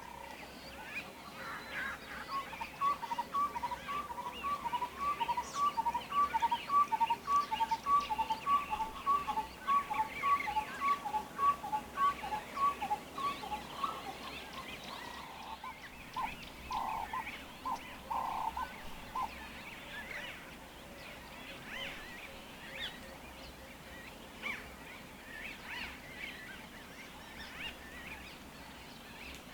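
Birds calling: one bird repeats a two-note call, a higher note then a slightly lower one, about twice a second for around ten seconds, then gives a few rougher notes, over softer chatter from other birds.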